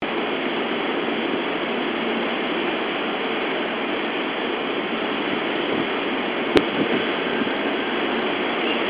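Seibu 3000 series electric train standing at the platform with its equipment running: a steady rushing noise, with one sharp click about six and a half seconds in.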